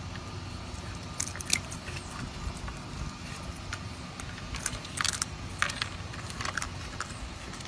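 Young raccoon chewing pieces of carrot: a scatter of short, sharp crunches over a low steady rumble.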